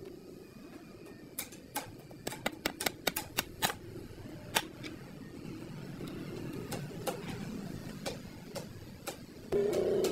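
Quick run of sharp metal-on-wood taps and clicks, about six a second at their busiest, from thin steel strips being fitted onto a wooden crate panel, then a few scattered taps. A louder, pitched sound starts near the end.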